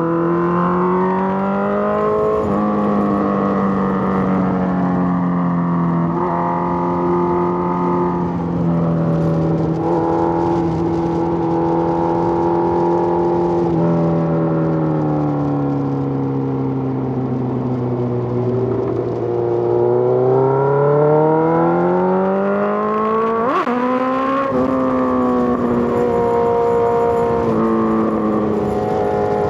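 Suzuki GSX-R1000 sportbike's inline-four engine under way, its pitch climbing and stepping down through several gear changes. It falls away as the bike slows a little past halfway, then climbs again on the throttle, with a sharp click about three-quarters through.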